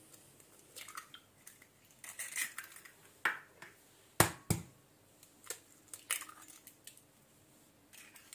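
Chicken eggs being cracked into a glass bowl: small crackles of eggshell being broken and pulled apart, with two sharp knocks about four seconds in as the second egg is struck to crack it.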